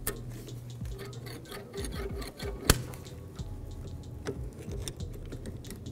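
Steel anti-rattle spring clip being pried and worked off a Volvo V70 brake caliper with pliers: scattered light metal clicks and scrapes, with one sharp click a little before the middle.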